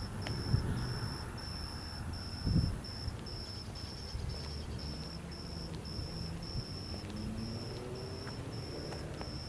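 An insect chirping a high note in regular pulses about twice a second, over a low rumble of wind on the microphone.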